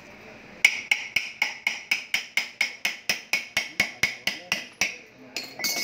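Rapid, even metallic taps, about four a second for some four seconds, from tool work on the bearing at the end of an alternator rotor shaft. A louder metallic clink follows near the end.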